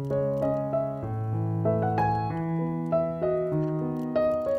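Background piano music: a melody of short notes over held bass notes that change about once a second.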